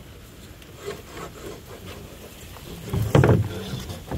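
Mahogany deck boards being handled and laid on the floor framing: light scrapes and knocks, then one loud wooden knock about three seconds in.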